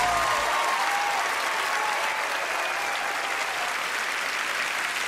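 A large studio audience applauding steadily.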